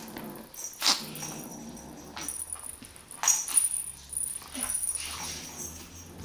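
A kitten growling low while carrying off a plush wand toy, with a few sharp knocks and scuffles of paws and toy on the floor.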